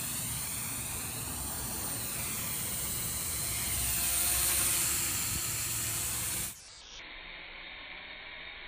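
Syma X11C toy quadcopter's small motors and propellers whining and buzzing, the pitch wavering as it manoeuvres, loudest around the middle. About six and a half seconds in the sound drops off sharply to a fainter hiss.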